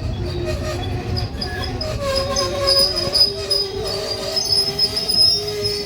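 Passenger train running on the rails, its wheels squealing in several wavering high-pitched tones over a low rumble.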